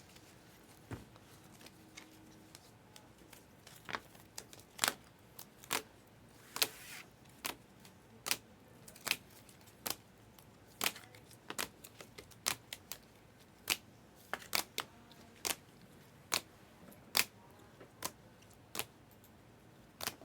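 Irregular sharp clicks and light taps, about one or two a second, from trading cards being handled and sorted on a table.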